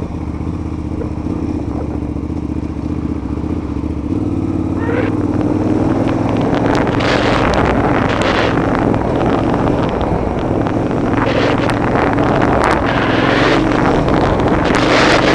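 KTM LC8 V-twin motorcycle engine running at fairly steady revs, with wind and gravel-like noise building and growing louder from about five seconds in.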